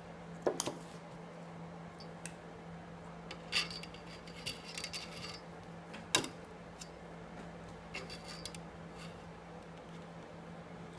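Scattered sharp clicks and light knocks of tools and a handmade soap loaf being handled and cut on a work surface, with the loudest single click about six seconds in.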